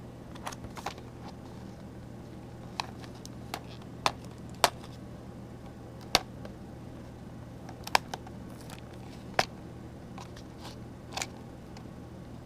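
Packaging being handled and opened by hand: a string of sharp clicks and taps at irregular intervals, with a few louder snaps.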